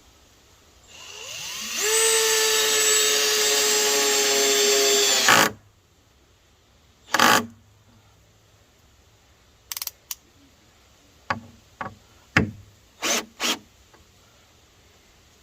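Power drill driving a deck screw into a deck board: the motor winds up over about a second, runs at a steady high whine for about three seconds, then stops. A few short knocks and clicks follow.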